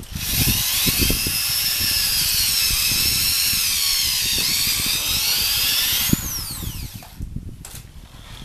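Handheld electric drill boring into the rubber of a car tire for about six seconds, its motor whine wavering in pitch under load. It then winds down in a falling whine when the trigger is released.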